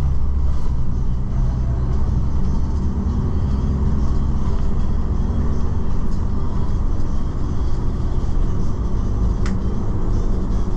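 Steady low rumble of an airport shuttle's engine and tyres, heard from inside the cabin as it drives. A short click comes near the end.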